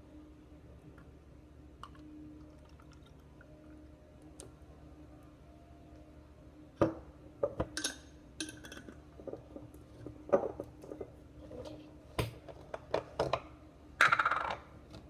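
Juice bottles being handled at a counter: a faint pour of grape juice from a glass bottle into a paper cup, then a run of sharp clicks and knocks from about seven seconds in as the plastic cap is screwed back on and the bottles are moved, with a louder, rougher burst near the end.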